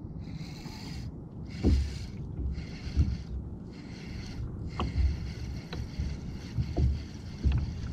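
Small waves slapping against a kayak hull in irregular low thumps a second or two apart, over wind on the microphone. Short repeated high whirring sounds run through the first half and then turn steady.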